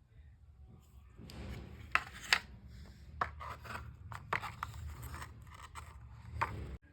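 Rustling and rubbing with several sharp clicks, the two loudest about two seconds in; the sound cuts off abruptly near the end.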